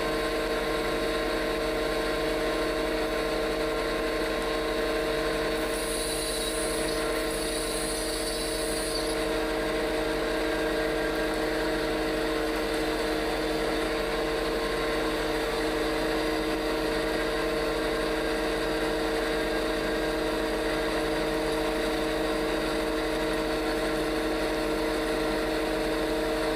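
Steady electrical hum with a constant pitch, like a stick-welding machine's transformer idling, over a low, even hiss; a faint higher hiss comes in for a few seconds about six seconds in.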